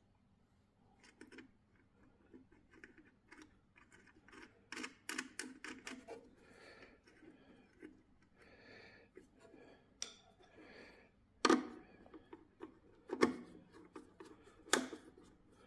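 Crimped ring-terminal leads clicking and rattling as they are handled and fitted onto a generator's terminal block in its sheet-metal connection box, with scraping and a screwdriver turning a terminal; three sharper knocks near the end.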